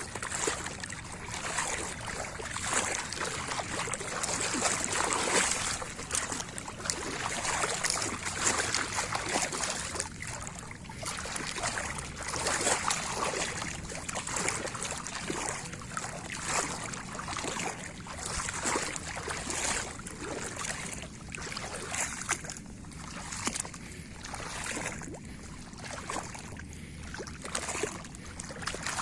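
Water sloshing and splashing in irregular strokes, as someone moves through shallow swamp water.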